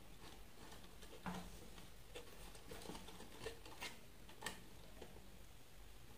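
Faint, scattered clicks and taps of hands handling and adjusting a copper-wound wooden coil former and its wires around a magnet.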